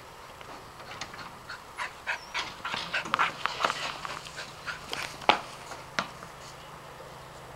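Poodle panting as it runs, with quick, irregular scuffs and clicks of its paws on stone and gravel; the loudest, a sharp click, comes about five seconds in.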